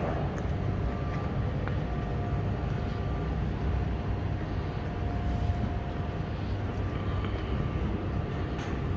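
Steady low rumble of foundry hall machinery, with a faint steady whine over it.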